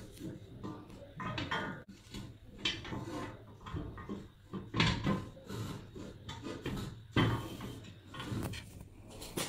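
Painted galvanized-steel HVAC wall bracket being handled: its cross bar slides and scrapes through the arms with irregular knocks and rubs, the loudest knocks about five and seven seconds in.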